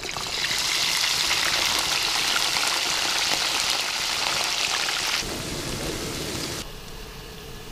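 Hot oil sizzling and crackling hard as frozen tater tots are poured into a frying pan. The sizzle drops quieter a little past five seconds in.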